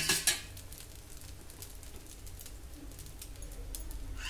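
Dosa sizzling faintly on a hot tawa, a steady crackle of small pops, with two sharp clatters at the very start.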